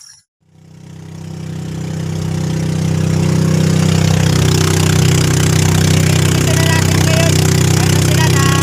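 Small motorboat's engine running steadily under way, with the hiss of wind and water from the wake over it. The sound fades up over the first few seconds, then holds steady.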